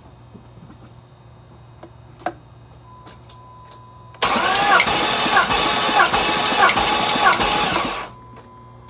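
2002 Jeep Grand Cherokee 4.7 L HO V8 turned over by its starter for about four seconds, with a whine that dips and recovers at a regular beat, then stopping without the engine running on. A thin steady beep sounds before and after the cranking.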